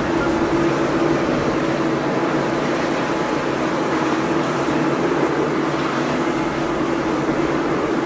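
Boeing 777 airliner's jet engines giving a steady roar as it climbs away after takeoff, with a steady humming tone underneath.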